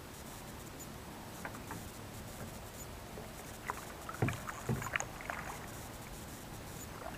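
Double-bladed kayak paddle strokes, the blades dipping and splashing in the water. Most of the splashes come in the middle, with two dull knocks about four seconds in.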